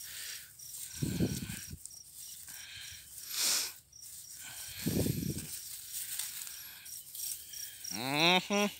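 Dry rice straw and stubble rustling as hands and body push through it, with a couple of louder low rustles. Insects chirp in a steady, even pulse throughout, and a man's voice starts near the end.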